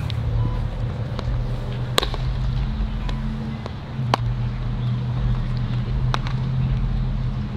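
Sharp pops of baseballs in an infield throwing drill, the loudest about two seconds in, again near four seconds and near six seconds, with fainter clicks between. A steady low hum runs underneath.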